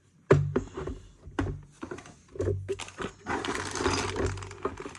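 Roof bike rack parts being handled: a run of sharp knocks and clicks, then about a second and a half of rustling.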